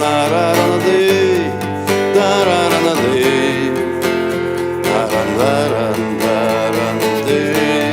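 Acoustic guitar strummed in a steady rhythm, with a wavering, gliding melody line over the chords.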